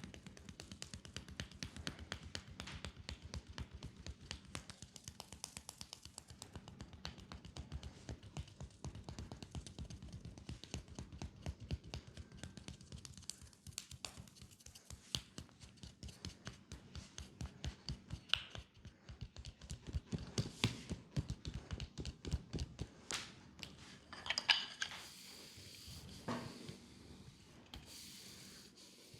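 Hands tapping quickly on a leg in a fast percussive massage, an even run of light strikes several times a second. Near the end the run thins out to a few scattered taps.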